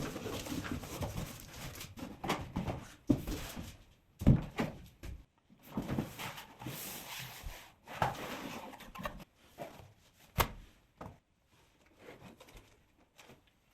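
Hands unboxing a laptop: packaging rustling and scraping, broken by sharp knocks and thumps of handling, the loudest about four seconds in and again near ten seconds, growing sparse toward the end.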